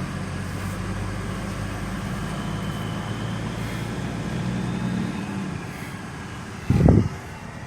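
Truck engine running steadily, fading away about five seconds in as the truck drives off. A short, loud low thump comes near the end.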